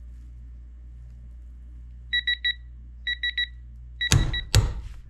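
Neiko digital torque adapter beeping in quick groups of about four short beeps, its warning that the preset 100 ft-lb is near. Just after four seconds in comes a loud clack, with a second one half a second later, as the Duralast half-inch click-type torque wrench breaks. It lets go at about 94 ft-lb, short of its 100 ft-lb setting, so the wrench reads low.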